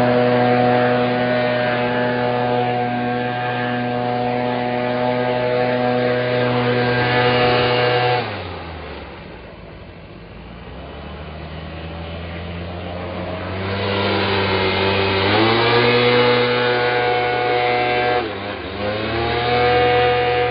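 Small gas engine of a handheld landscaping power tool running at full throttle. About eight seconds in it drops to idle, then it revs back up around fourteen seconds, with a brief dip near the end.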